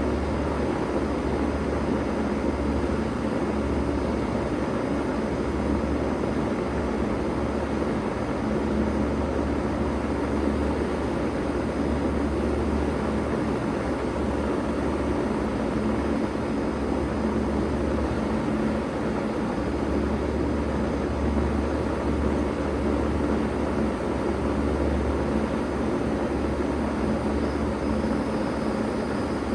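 Bard 3-ton wall-hung heat pump running steadily in cooling mode: a constant low hum under an even rush of air.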